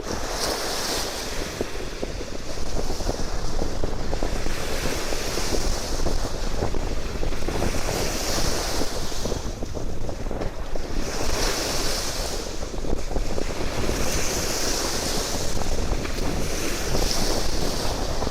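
Sea waves washing onto the shore, a hiss that swells and fades every two to three seconds, with wind buffeting the microphone as a steady low rumble.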